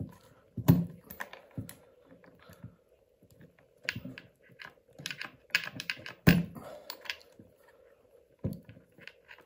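Irregular clicks and knocks of hands working on small plastic parts of an RC car's electronic speed controller (ESC) as its plug connectors are pulled out. The two loudest knocks come about a second in and again near the middle.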